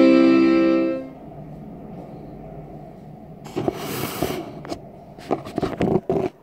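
Piano accordion holding a final sustained chord that stops about a second in. After a short lull, a rustle and a run of clicks and knocks follow as the recording phone is handled.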